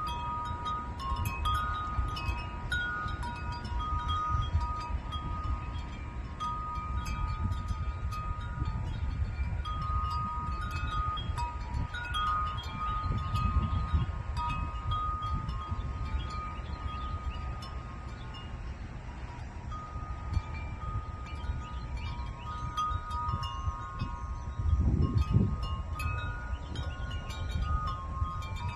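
Wind chimes ringing irregularly, several tuned tubes sounding different notes that overlap and ring on. A low rumble of wind sits underneath and swells briefly near the end.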